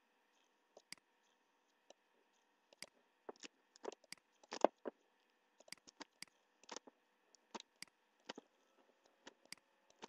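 Computer mouse clicking: irregular short, sharp clicks, bunched most thickly around the middle, over a faint steady hum.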